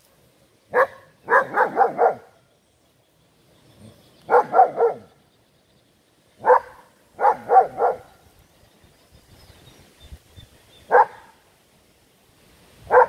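German shepherd puppy barking: high, sharp play barks that come singly or in quick runs of three or four, about seven bursts in all, as the puppies tussle over a brush.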